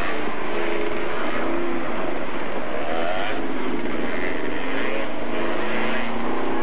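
Off-road vehicle engine running hard under load, its pitch rising and falling repeatedly as it revs.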